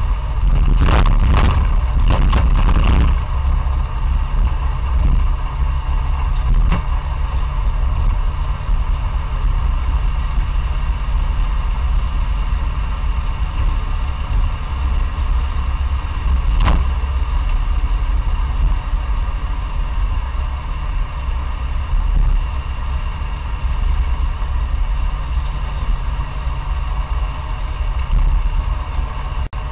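Classic Fiat 500's air-cooled two-cylinder engine running steadily while the car is driven, with road noise. About a second in there is a quick run of sharp clatters, and a single sharp click comes about 17 seconds in.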